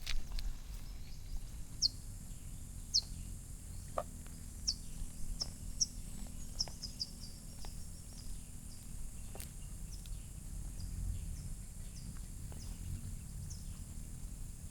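Small birds giving short, high chirps, scattered and more frequent in the first half, over a steady outdoor hiss and low rumble, with a few faint knocks.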